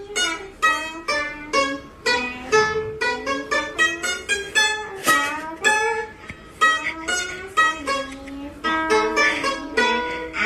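Background music: a plucked-string tune played as a quick run of separate notes.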